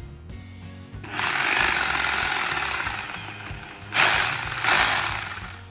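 Bossman BGBH226 900 W rotary hammer running free in the air with an SDS drill bit fitted. The trigger is squeezed about a second in and held for about four seconds, a steady motor whine over the mechanism's noise, with two sharper surges near the end before it is released.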